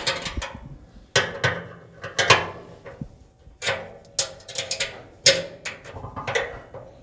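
A hand tool knocking and scraping against the thin steel chimney and barrel of a Traeger Pro 575 pellet grill while the chimney bolts are tightened. There are about eight sharp, irregular metallic clanks, each ringing briefly in the sheet metal.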